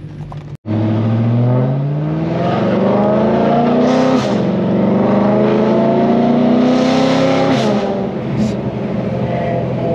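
Straight-piped BMW E92 M3's V8, running without mufflers or resonators, accelerating hard, heard from inside the cabin. The exhaust note climbs in pitch, drops at an upshift about four seconds in, climbs again and drops at a second shift near eight seconds, and is way too loud to the owner. It cuts in suddenly after a brief dropout about half a second in.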